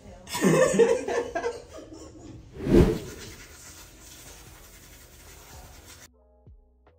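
Laughter, then a single loud knock like the phone being bumped, then a steady hiss that cuts off suddenly near the end.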